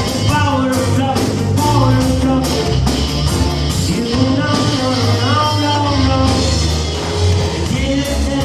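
A band playing: a steady bass line and regular drum hits under a gliding melodic lead line.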